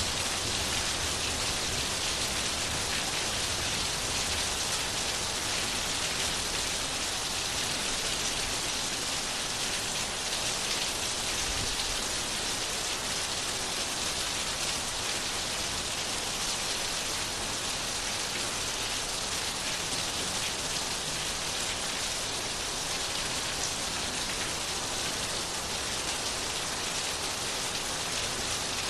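Steady rain falling on a surface, an even hiss with no break or change.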